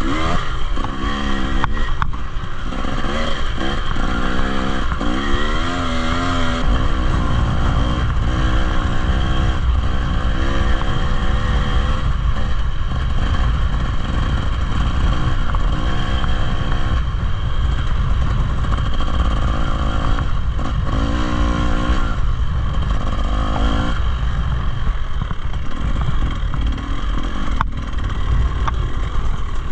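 Dirt bike engine revving up and down again and again while being ridden, over a constant low rumble.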